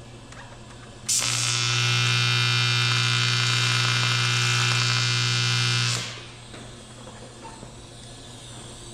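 AC TIG welder arc buzzing steadily on aluminum tubing for about five seconds. It starts abruptly about a second in and tapers off at the end of the weld.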